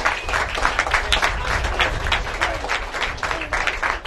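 Crowd applauding, many hands clapping at once, with wind rumbling on the microphone.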